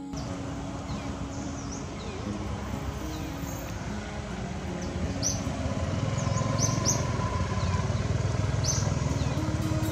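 A motor running steadily, growing louder over the second half, with short high chirps now and then.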